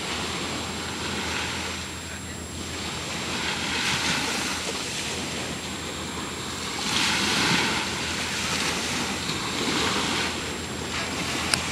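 Ocean surf washing ashore, swelling louder every few seconds, with wind rumbling on the microphone. A single sharp click near the end.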